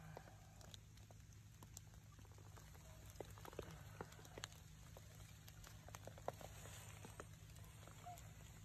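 Near silence with faint, scattered ticks and patter on wet leaf litter, coming irregularly, several a second.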